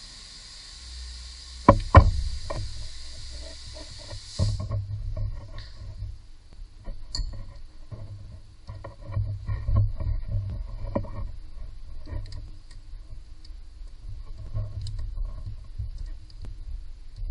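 Hand tools on an engine: a socket wrench with an extension worked on a bolt, giving two sharp metallic knocks about two seconds in, then scattered light clicks and taps over low handling rumble. A steady hiss runs underneath and cuts off suddenly a little after four seconds in.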